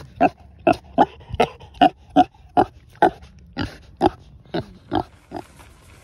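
Pig grunting at close range: about a dozen short grunts in a steady rhythm, two or three a second, the last few a little weaker.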